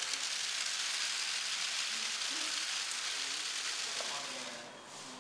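Rain falling steadily, an even soft hiss, fading out near the end.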